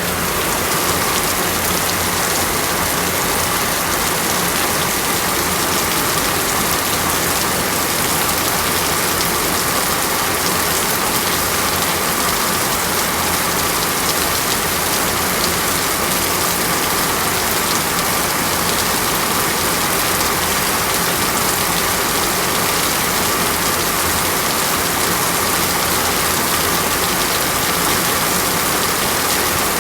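Heavy rain falling steadily, an even, unbroken hiss of drops with no let-up.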